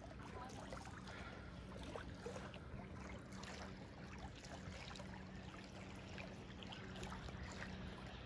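Faint lapping and trickling of small waves on the lake shore, with a faint low steady hum underneath.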